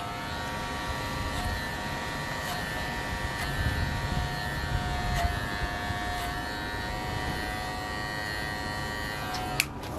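Electric hair clippers with a comb attachment running through hair, a steady buzz that stops with a click near the end.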